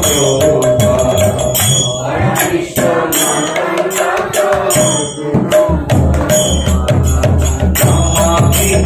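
Women singing a devotional kirtan together, with metallic jingling percussion throughout. A steady drum beat comes in about six seconds in.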